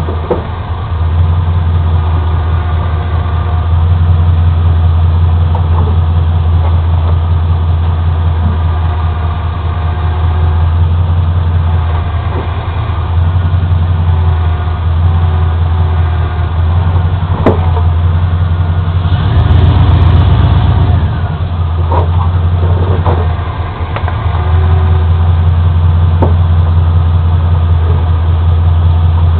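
2002 Chevy Avalanche Z66's V8 engine running at low speed while the truck is turned at full lock on a slope, with several sharp pops from the front end scattered through it. The pops come only on these full turns.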